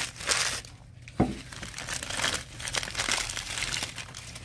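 Crumpled packing paper crinkling and rustling as it is handled and pulled away from glass paperweights, with one short, sharp knock about a second in.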